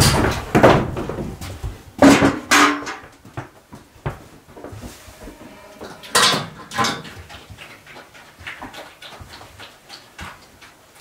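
A domestic pig grunting loudly a few times as it comes in, around the start, about 2 s in and about 6 s in. Then it eats from a wooden trough, with a run of small, quick chomping clicks.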